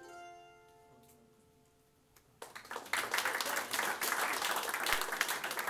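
A mandolin's last chord rings out and fades. About two and a half seconds in, the audience breaks into applause, which quickly gets loud and keeps going.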